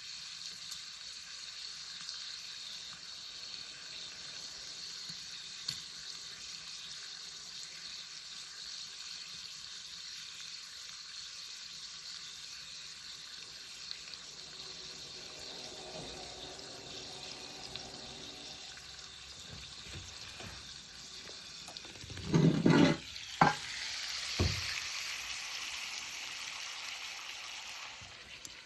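Meat sizzling over the fire in a chiminea, a steady hiss, with insects chirping steadily. About 22 seconds in come a few loud knocks, after which the sizzling is a little louder.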